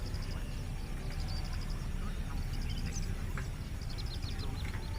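Outdoor background: several bursts of rapid high chirping, like small birds, over a low steady rumble. No train or horn is heard.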